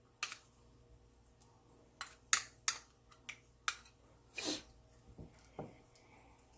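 Spoon clicking and knocking against a bowl and a paste container while gochujang is scooped into the marinade: about half a dozen sharp knocks with quiet gaps between them, and a brief scrape about four and a half seconds in.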